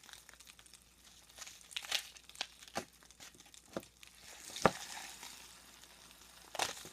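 Pop Rocks candy crackling and popping in water: scattered sharp pops at irregular intervals, the loudest snap about two-thirds of the way through with a short fizzing hiss around it.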